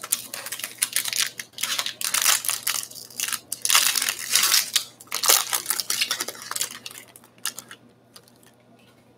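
Trading card pack wrappers crinkling and tearing in a run of irregular crackly bursts as packs are opened, stopping near the end.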